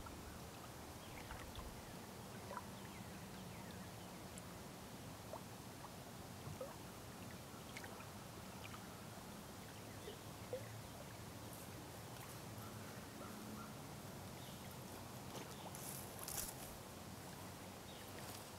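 Faint lakeshore ambience: small waves lapping against the shore, with a few brief high chirps scattered through it and a short rustle near the end.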